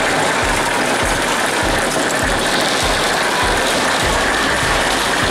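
Electric bumper car running across the ride's metal-plated floor: a steady, loud mechanical noise.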